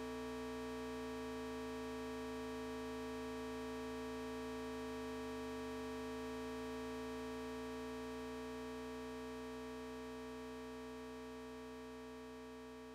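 Eurorack modular synthesizer oscillator holding one steady square-wave drone with a full stack of overtones, fading slowly over the second half.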